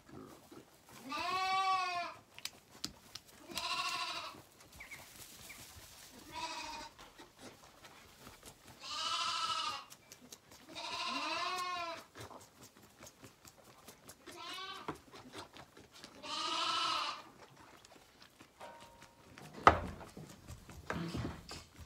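Zwartbles lambs bleating at bottle-feeding time: seven loud bleats a couple of seconds apart, each rising then falling in pitch. A single sharp knock comes near the end.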